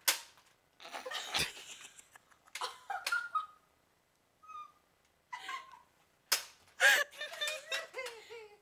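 Nerf blaster shots: a sharp snap at the start and a thump about a second and a half in. Quiet voices and stifled giggling follow.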